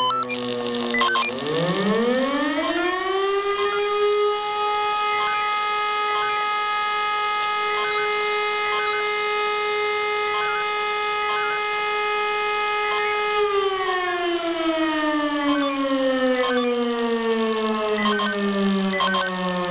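E57 electric motor siren sounding one long blast of a test fire alarm. It winds up from a low growl to full pitch over about three seconds, holds a steady wail for about ten seconds, then winds down slowly as the rotor coasts.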